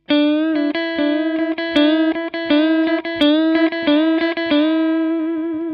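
Fender Stratocaster electric guitar on a clean tone, playing a broken-up unison bend. It picks rapidly back and forth between a note on the G string's seventh fret, held bent up a whole tone, and the unbent fifth fret on the B string, so both notes sound at the same pitch. The notes are picked about four to five times a second.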